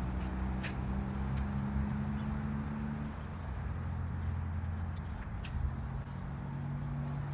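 Steady low drone of running machinery, made of several low tones that shift slightly about three seconds in, with a few faint short ticks over it.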